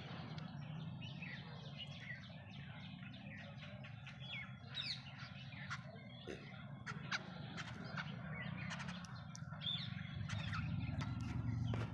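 Small birds chirping in many short, quick calls, over a steady low rumble that grows louder near the end.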